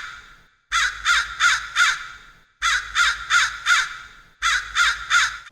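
Crow cawing: three runs of about four harsh caws each, with a short pause between runs.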